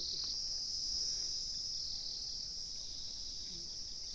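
Steady high-pitched insect chorus, swelling and easing slightly.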